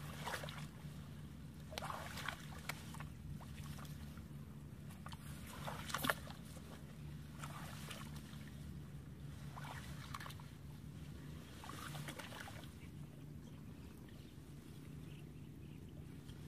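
Shallow pond water sloshing and splashing as someone wades slowly through it, a soft splash every couple of seconds and a sharper one about six seconds in, over a steady low hum.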